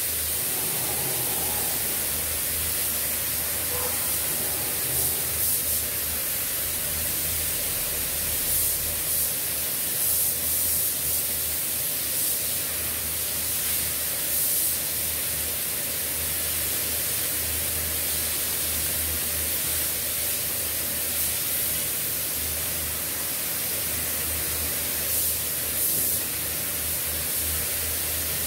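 Air spray gun hissing as it sprays paint onto a plastic car bumper: a steady rush of atomising air with brief louder surges every few seconds, over a low steady hum.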